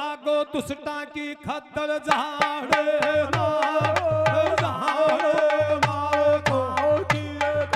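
Amplified Indian folk music: a male voice singing over a steady held drone and melody, with a quick hand-drum beat. A low bass pattern comes in about three seconds in.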